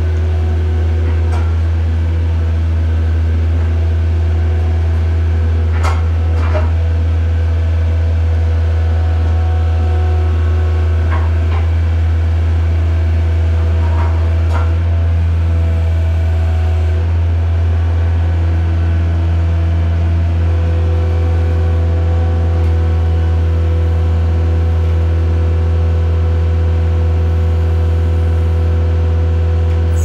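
Skid steer engine running steadily with a deep, constant hum, and a few light knocks early on as it handles a large log round with its wood-splitter attachment.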